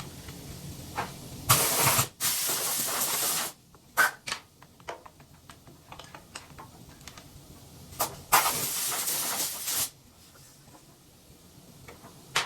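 Two blasts of compressed air hissing, each about two seconds long, blowing debris off a wood chipper's anvil seat to clean it before the anvil is refitted. Light metallic clicks and knocks come between the blasts.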